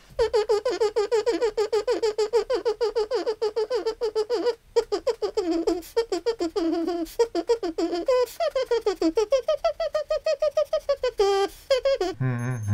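A fast song in quick, short high notes, about eight a second. It breaks off briefly near five seconds in and holds a longer note about ten seconds in.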